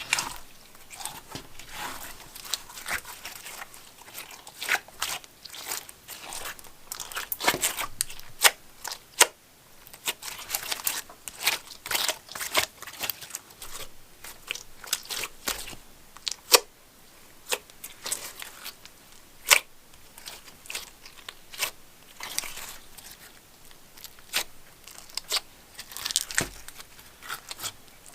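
Slime being squeezed, stretched and poked by hand, giving many irregular sticky clicks and popping sounds.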